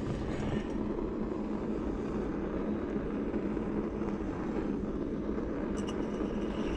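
Handheld butane kitchen torch (crème brûlée torch) flame burning steadily as it is played over a brass alcohol-stove burner.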